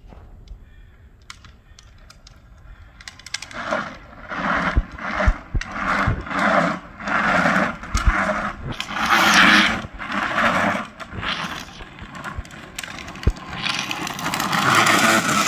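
Hard plastic rear wheels of a drift trike scraping and skidding across asphalt in a run of repeated slides, starting a few seconds in, with a few sharp clicks among them.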